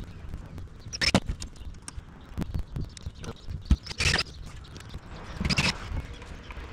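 Cordless drill driving a self-tapping hex-head screw through a steel strut channel into the roof, in three short bursts about a second in, about four seconds in and about five and a half seconds in. Small clicks and knocks of metal handling fall between the bursts.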